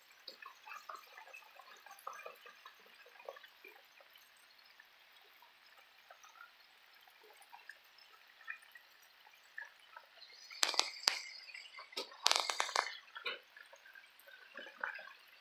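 Breaded crappie fillets deep-frying in hot peanut oil in a wire fry basket: a steady, fine crackle of small pops and bubbles. Two short, louder bursts of sharp crackle or clatter come about ten and twelve seconds in.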